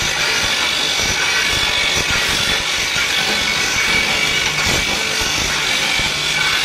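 Brake shoe grinding machine running steadily, its rotary turntable carrying motorcycle brake shoes under a covered abrasive head: a continuous even grinding noise.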